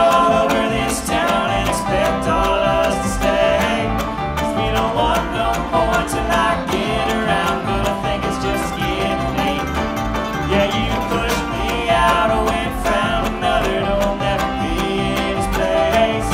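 Bluegrass string band playing live: banjo picking over acoustic guitar and mandolin, with upright bass underneath, at a steady driving pace.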